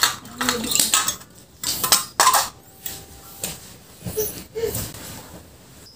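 Thin aluminium drink cans, cut open, clinking and knocking as they are handled and set down on a tile floor: a series of separate light metallic taps and clatters.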